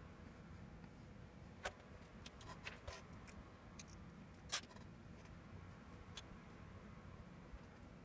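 A scattering of faint clicks and taps as the plastic and metal parts of a Realistic SCT-29 cassette deck's transport mechanism are handled while a drive belt is worked around the flywheel, the sharpest click about four and a half seconds in.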